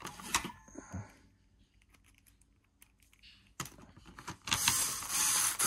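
Light clicks of screws and a screwdriver handled against the plastic housing of a vacuum cleaner head, then, about three-quarters of the way in, a powered screwdriver whirring steadily as it drives a screw home.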